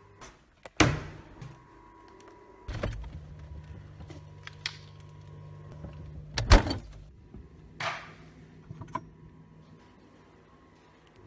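A handful of sharp knocks and clunks, the loudest about six and a half seconds in, over a faint low steady hum.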